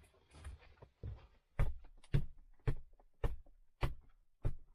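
A series of seven short, evenly spaced knocks, a little under two a second, starting about a second in.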